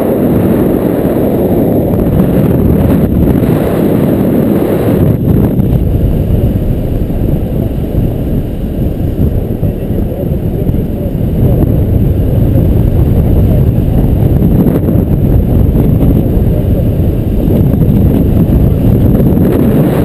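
Wind buffeting an action camera's microphone on a selfie stick during a tandem paraglider flight: a loud, steady low rumble of rushing air.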